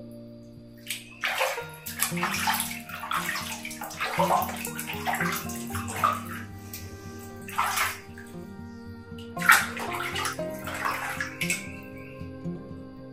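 Water splashing and sloshing in a plastic basin as a baby monkey is washed by hand, in irregular bursts.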